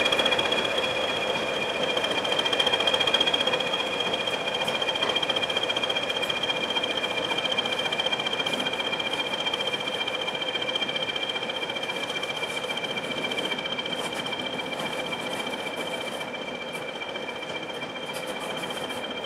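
English Electric Class 20 diesel locomotive running as it pulls slowly away, its engine note topped by a steady high two-pitched turbocharger whistle. The sound fades gradually as it draws off.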